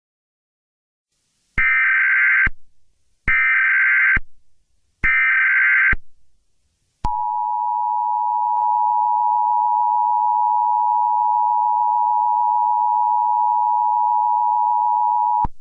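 Emergency Alert System SAME header: three short bursts of shrill digital data tones, each just under a second long, followed by the EAS attention signal, a steady two-tone beep held for about eight seconds. Together they mark the start of a new emergency alert broadcast.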